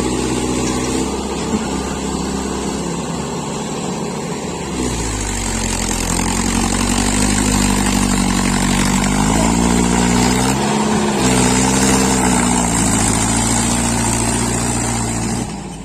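Tractor engine running hard, its pitch rising and falling several times with the throttle, then dropping away at the end.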